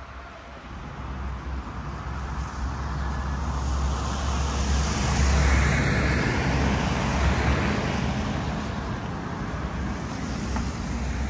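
Road traffic: a vehicle passes close by, its low engine rumble and tyre hiss swelling over about five seconds and then slowly fading.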